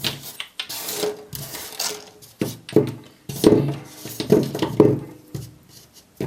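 Sony US18650GR 18650 lithium-ion cells being handled and knocked against each other and the work surface: a string of metallic clinks and knocks with rubbing between them, the loudest knocks in the second half.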